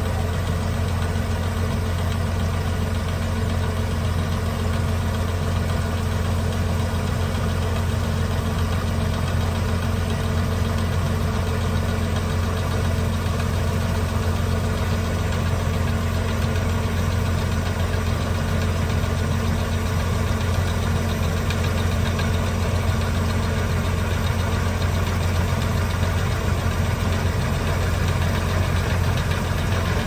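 An engine running steadily at one constant speed: a low, even drone that does not rise or fall.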